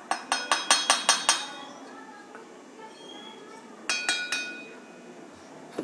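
Steel cup clinking against a stainless steel mesh sieve while ground spice is pushed through it: a quick run of about eight ringing metallic clinks in the first second and a half, then a shorter run of four about four seconds in.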